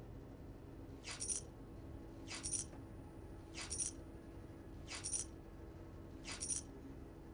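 Five short, bright metallic coin-clink sound effects, evenly spaced about one every 1.3 seconds, each marking a coin vanishing, over a low steady hum.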